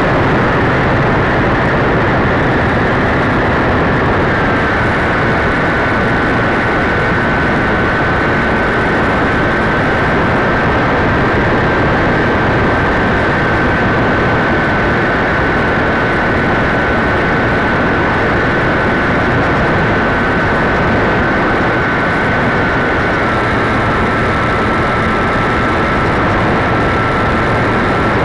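Radio-controlled model airplane in flight, heard from its onboard camera: the motor and propeller running steadily with a thin high whine over a heavy rush of air noise. The whine steps up slightly about four seconds in and drops a little about five seconds before the end.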